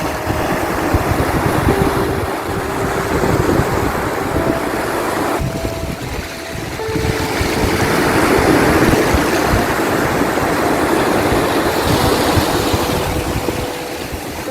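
Ocean waves washing onto the shore, a continuous rush that swells and falls back, with wind buffeting the microphone.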